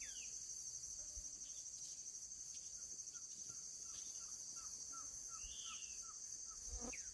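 Insects trilling steadily at a high pitch, with scattered bird calls: a few quick falling whistles and, in the middle, a run of about ten short repeated notes at roughly three a second.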